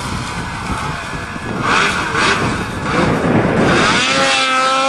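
Snowmobile engine running and revving as the sled is ridden through the snow close by, settling into a steady high-pitched drone at high revs near the end.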